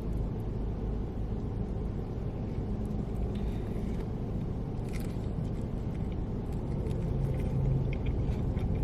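A steady low background rumble, with a few faint crunchy chewing sounds from biting into a Cheetos-breaded chicken wing flat, mostly around the middle.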